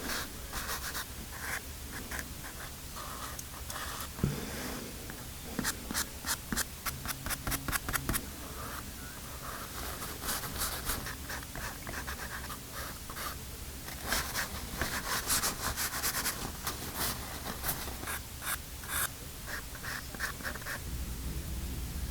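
Pastel scratching and rubbing across paper in runs of quick back-and-forth strokes.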